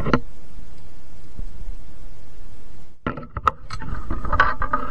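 Steady rushing of wind on the microphone, then from about three seconds in a cluster of sharp clicks and light metallic rattles as the landed black bass and its metal spinnerbait are handled on the line.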